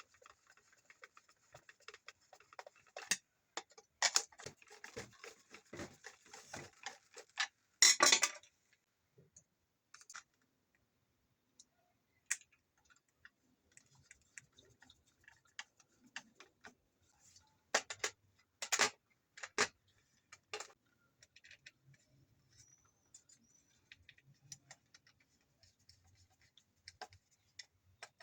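Small hard plastic and metal parts being handled: scattered clicks, taps and light scrapes, with a louder rattle about eight seconds in and a few sharp clicks about two-thirds of the way through.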